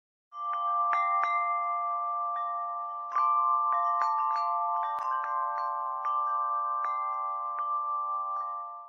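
Chimes ringing: a held chord of several steady tones with many light tinkling strikes above it. It starts just after the beginning, grows a little louder about three seconds in, and fades out just before the end.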